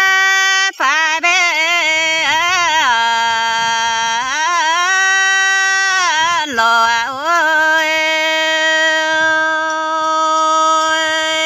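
A woman singing a Red Dao (Iu Mien) folk song in long, drawn-out notes with wavering ornaments. Her voice drops to a lower held note about three seconds in, climbs back, dips briefly again, and settles on one long held note.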